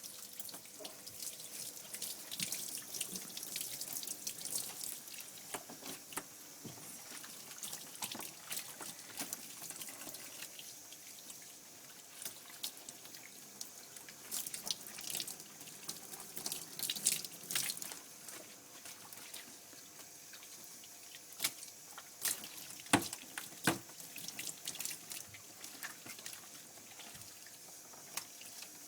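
Water running from a shower spray and splashing over a dog's coat in a bath, with drips and splashes throughout. A few sharp knocks about three quarters of the way through stand out as the loudest sounds.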